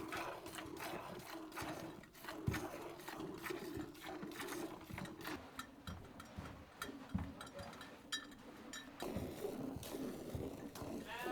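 A cow being milked by hand: short squirts of milk hitting the pail in a quick rhythm, with the cow chewing her feed.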